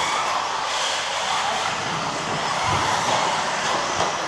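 Several 1:10 scale electric off-road RC buggies racing on an indoor carpet track: a steady blend of motor and tyre noise, echoing in the hall.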